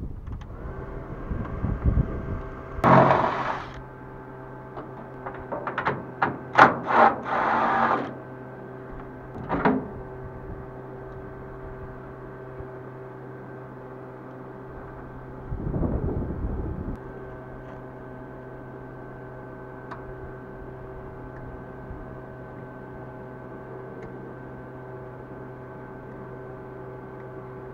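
A steady machine hum. A few short hissing bursts come in the first eight seconds, and a brief rushing noise comes about sixteen seconds in.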